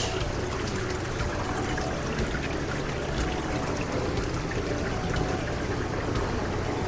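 Steady trickling and pouring of water from running aquarium tank filters, with a faint low steady hum beneath.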